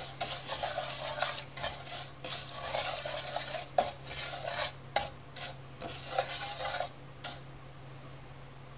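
Wooden spoon stirring and scraping thin vermicelli in olive oil in a frying pan as the vermicelli is toasted, in irregular strokes with light clicks, which stop about seven seconds in.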